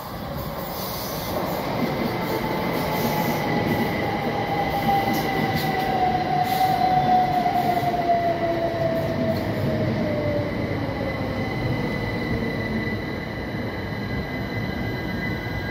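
c2c Class 357 Electrostar electric train pulling into a station and braking, with wheel and rail noise throughout. A falling whine from its traction motors as it slows, and a thin steady high squeal over it.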